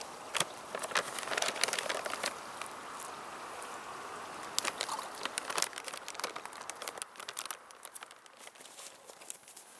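Irregular rustling and crackling close to the microphone, with many sharp clicks, thinning out after about seven seconds.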